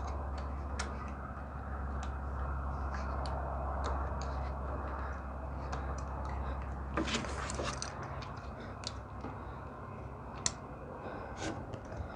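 Scattered light clicks and handling noises over a steady low hum. The hum stops about seven seconds in, just as a brief rustling scrape sounds.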